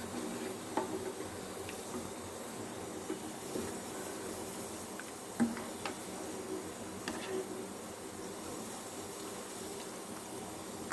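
Pot of crab rasam simmering on the stove after its tempering: a steady low hiss and faint hum, with a few soft clicks here and there.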